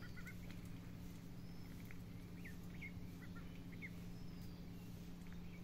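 Faint outdoor ambience of birds: short scattered chirps, some with quick pitch glides, over a steady low hum.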